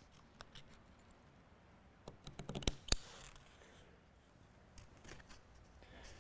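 Scissors snipping small slits into marine canvas fabric along a curved seam: a few quiet snips, with two sharp clicks close together about halfway through.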